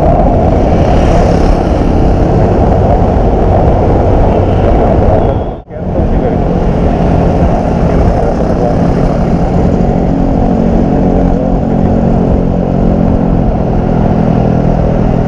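Wind roaring over the camera microphone on a moving Yamaha NMAX 155 scooter, with the scooter's engine and tyre noise underneath. The sound drops out for a moment a little over five seconds in.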